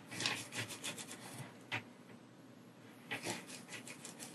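Light crackly clicks and scratches from soldering work on a copper perfboard: a quick cluster over the first second and a half, a single sharp click, then another short cluster about three seconds in.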